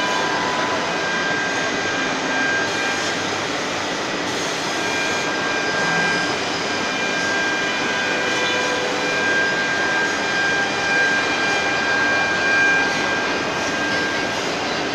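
Spindle of a Jinan Quick K45MT CNC router running, a steady high whine over a constant rushing noise.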